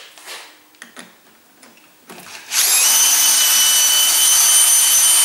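Cordless drill spinning a hex bit in a four-jaw lathe chuck's jaw-screw socket, unscrewing the jaw. A few light clicks, then about two and a half seconds in the drill starts and runs with a loud, steady high whine.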